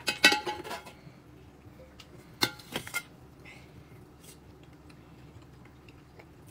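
Short knocks and clinks of tableware, basins and dishes set down and handled on a table: a cluster at the start and two or three more sharp clinks about two and a half seconds in.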